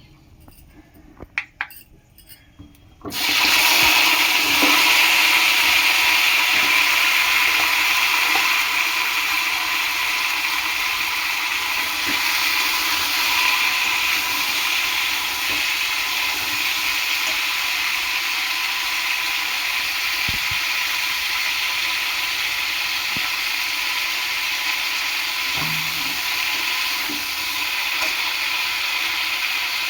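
A few faint clicks, then about three seconds in a loud, steady hiss starts suddenly and continues, easing off slightly over the following seconds.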